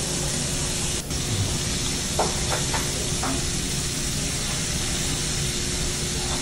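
Steak sizzling on a hot teppanyaki griddle, a steady hiss, with a few brief clinks about two to three seconds in.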